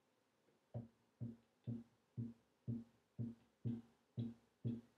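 A bass playing a tango figure: the same low note plucked again and again, about two a second, starting about three quarters of a second in.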